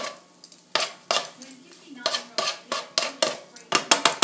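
Metal cooking utensil clattering and scraping against a frying pan while chicken is turned as it cooks: a string of sharp, irregular knocks that come faster near the end.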